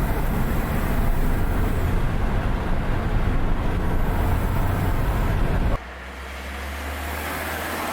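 Engine and road noise heard inside the cabin of a Mk4 VW Golf GTI with its turbocharged 1.8-litre 20-valve four-cylinder, windows up, while driving. A steady low rumble under an even hiss, and the level drops suddenly about six seconds in.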